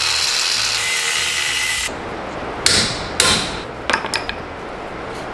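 Angle grinder cutting back the cast collar of an axle housing to reach weldable steel. The disc grinds steadily with a high whine, stops about two seconds in, then bites again in two short bursts, followed by a few light metallic clicks.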